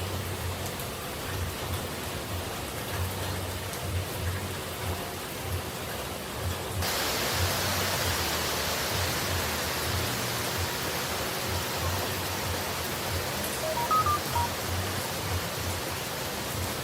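Steady hiss of falling water, as in rain or a waterfall, that suddenly turns brighter and louder about seven seconds in. A few brief, faint high tones sound near the end.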